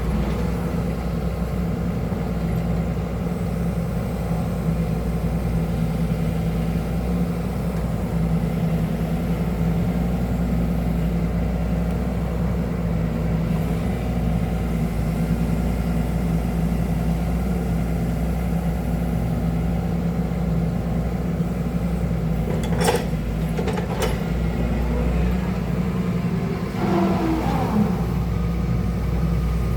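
Excavator's diesel engine running steadily, with two sharp knocks about a second apart roughly three-quarters of the way through.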